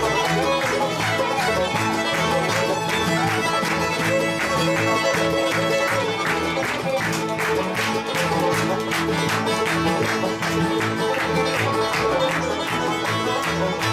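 Bluegrass band playing live, the fiddle carrying the lead over strummed acoustic guitar, banjo and upright bass keeping a steady beat.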